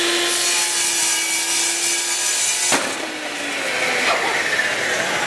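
Bosch REAXX table saw running and cutting into a wooden board. About two and a half seconds in, one sharp bang as the flesh-sensing safety system fires and drops the spinning blade below the table, tripped by a hot dog held in place of a finger. The motor's pitch then falls as it winds down.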